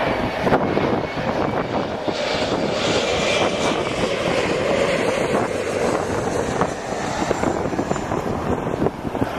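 American Airlines jet airliner passing low overhead on final approach to land, its engines running with a steady, dense jet noise.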